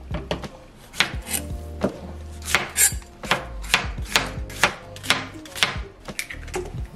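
Chef's knife chopping on a cutting board: a steady run of sharp knocks, about two a second, starting about a second in and stopping shortly before the end.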